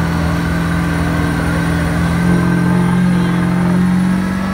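Engine of a lifted mud-bog pickup on oversized mud tires, held at high revs under load as the truck churns in a deep mud hole. Its pitch rises a little about two seconds in and holds there.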